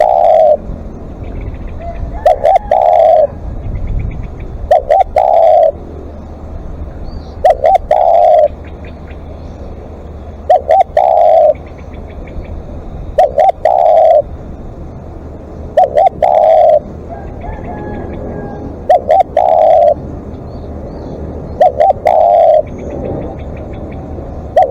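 Spotted dove cooing its repeated call: two or three short coos followed by a longer one, the phrase repeated about every three seconds, nine times.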